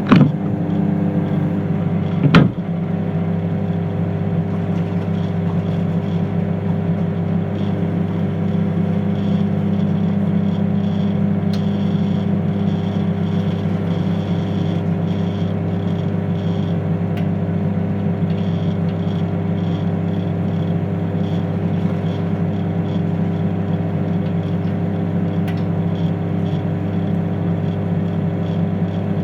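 Microwave oven running with its steady hum, with a single sharp knock about two seconds in.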